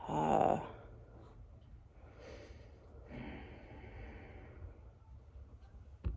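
A person's audible breath out, a sigh-like puff in the first half-second, followed by faint breathing in a small room.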